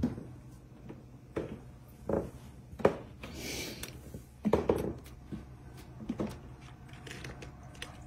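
A door and its latch being handled, giving about half a dozen scattered knocks and clicks over a faint low hum, with a brief hiss a little after the middle.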